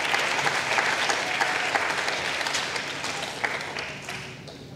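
An audience of schoolchildren applauding: a dense patter of many hands clapping that thins out and fades near the end.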